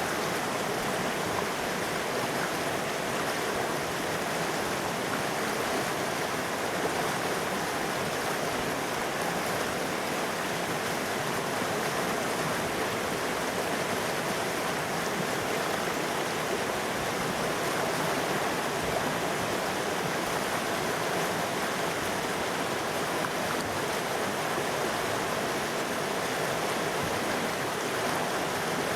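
River water rushing and burbling over rocks, a steady even rush with no breaks.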